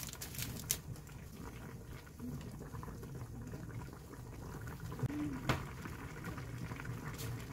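A pot of ramen-noodle stew boiling and bubbling steadily on a gas stove, with a few sharp clicks over it, the clearest about five and a half seconds in.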